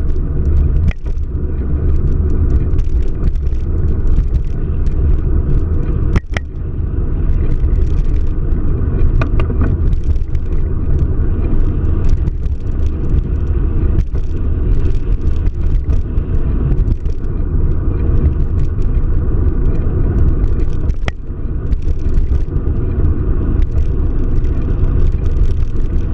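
Car driving: a steady low rumble of road and engine noise, with a few brief knocks.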